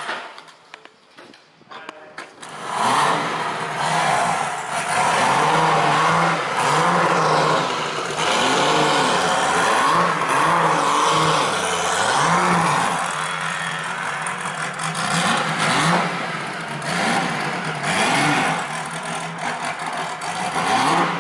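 March 86G prototype's Buick V6 racing engine blipped repeatedly on the throttle, its pitch rising and falling again and again, then revving up as the car pulls away near the end. The first two seconds are quiet before the engine comes in.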